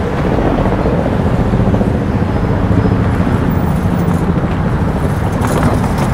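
Road traffic: a steady rumble of cars passing on a busy roadway, with no single vehicle standing out.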